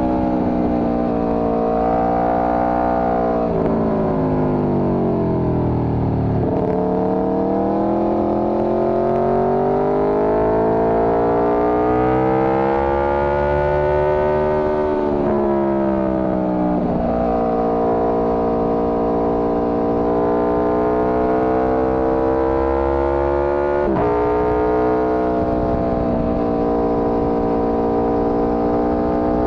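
Motorcycle engine under way on the road, its pitch rising and falling with the throttle. It dips for a few seconds, climbs steadily for about eight seconds, then falls away, and drops sharply near the end at a gear change.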